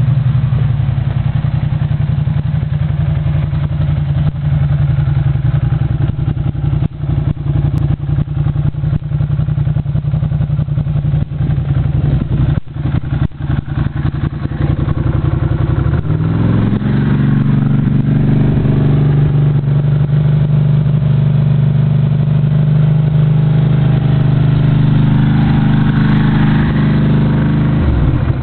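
Ducati motorcycle engine idling, then revved up a little past halfway and held at the higher speed before dropping back at the very end.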